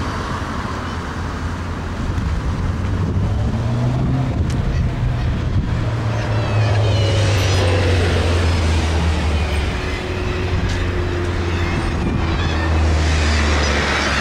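Road traffic with a steady low engine rumble underneath, and one vehicle passing near the middle as its pitch slides down.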